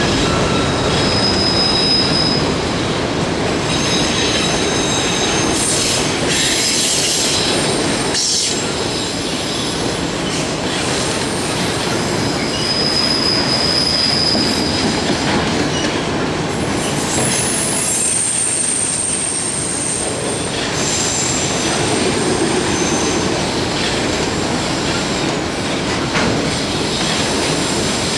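Freight cars of a Union Pacific mixed and auto-rack train rolling steadily past, with high-pitched wheel squeal that comes and goes in several short stretches.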